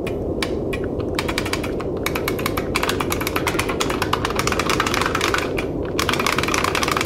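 Fast typing on a full-size computer keyboard: rapid key clicks in quick runs with brief pauses, over a steady low rumble.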